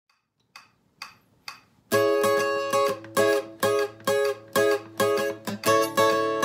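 Steel-string acoustic guitar playing a rockabilly double-stop melody: short, accented two-note plucks in a steady rhythm, about two or three a second. The playing starts about two seconds in, after three faint ticks.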